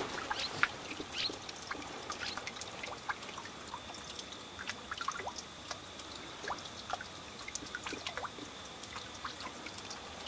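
Many short, scattered bird chirps and calls, a few every second, over a faint steady high whine and soft background hiss.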